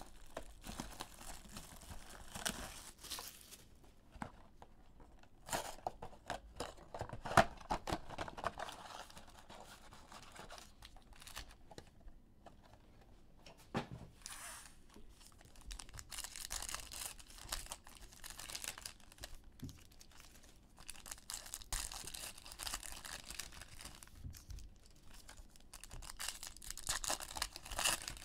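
Foil trading-card pack wrappers crinkling and tearing as packs are opened by hand, in several separate bursts, with a sharp click about seven seconds in.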